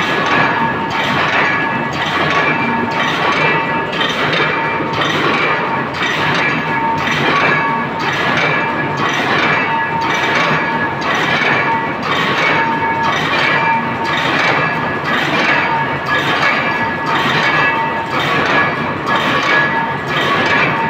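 Shuttleless wire mesh weaving loom running, a metallic clank about once a second over a steady metallic ringing.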